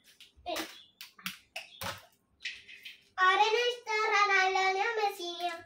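A young boy singing in a high voice, drawn-out notes from about three seconds in. Before that come a few short clicks and rustles.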